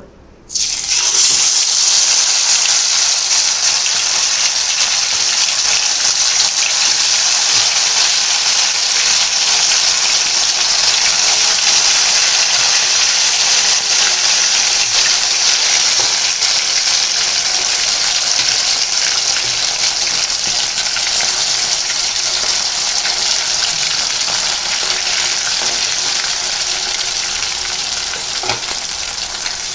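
Marinated chicken pieces deep-frying in hot oil in a kadai: a loud, steady sizzle that starts suddenly about half a second in and slowly eases off.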